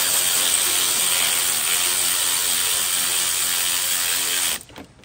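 Cordless electric ratchet running continuously as it spins a bolt on the hybrid's A/C compressor, stopping about four and a half seconds in.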